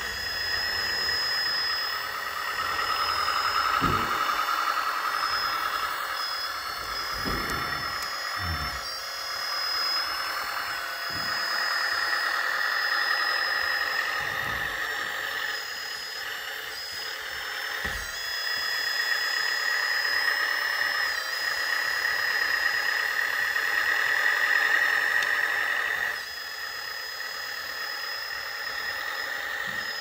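Hydraulic pump of an RC hydraulic backhoe loader (LESU Volvo BL71 model) whining steadily, growing louder and easing off in long stretches as the backhoe arm is worked through its dig, with a few dull knocks.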